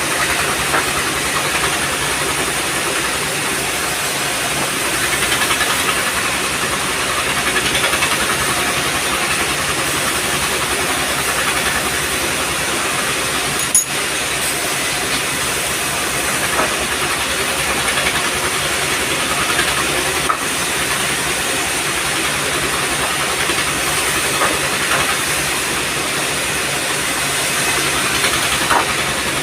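Sawmill machinery running: a loud, steady hiss of noise with a faint engine hum underneath and a couple of brief clicks.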